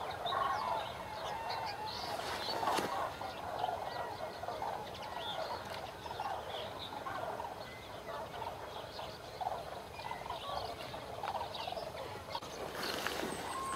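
A large flock of common cranes calling together: a dense, unbroken chorus of many overlapping trumpeting calls.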